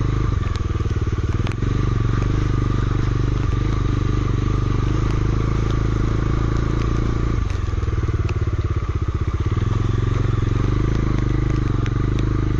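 Motorcycle engine running steadily while riding, with scattered sharp clicks over it.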